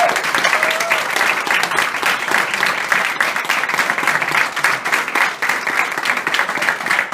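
Audience applause: many hands clapping in a dense, steady patter, with a short cheer near the start.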